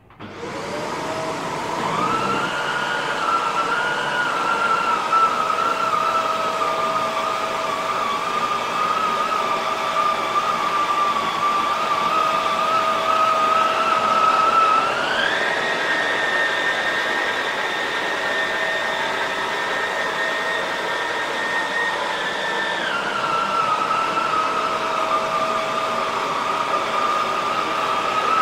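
Shark Rotator upright vacuum cleaner switching on, its motor whine rising over about two seconds to a steady pitch as it runs over a shag rug. About halfway through, the whine steps up higher for several seconds, then settles back to its earlier pitch.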